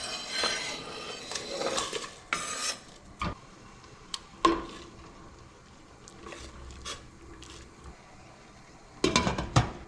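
Stainless steel cookware clattering as potatoes are slid into a pot and the pot is covered: a scraping rush in the first couple of seconds, then scattered sharp clinks and knocks, with a cluster of clatter near the end.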